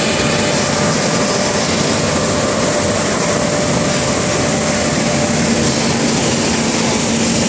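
Plastic film and woven bag washing line machinery running: a loud, steady mechanical din with a constant hum and a high whine.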